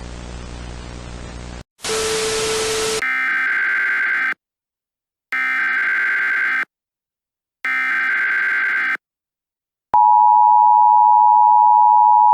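Emergency Alert System broadcast sequence: steady static hiss, a louder burst of static, then three identical buzzy SAME data-header bursts about a second apart, followed near the end by the loud, steady two-tone EAS attention signal.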